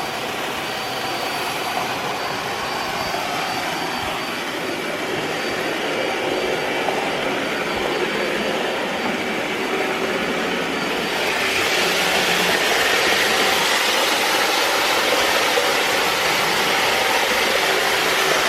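iRobot Roomba s9+ robot vacuum running at max power, a steady suction whir that grows louder and brighter about eleven seconds in.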